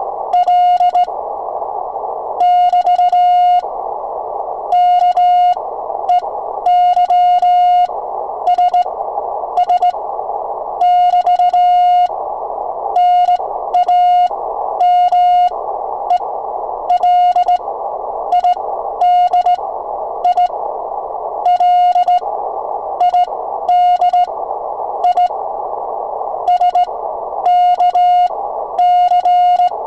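Morse code sent by hand on a sideswiper key, heard as the Icom transceiver's steady sidetone switched on and off in dots, dashes and characters. Between the characters the receiver's band hiss fills the gaps.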